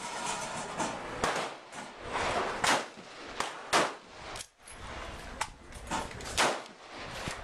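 Gunfire at a shooting range: a string of sharp shots at uneven intervals, about nine in all, some louder and some fainter.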